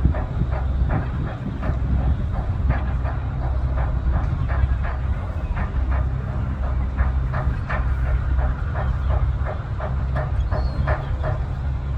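A boat's engine running, a steady low drone with a quick, uneven clatter of knocks over it.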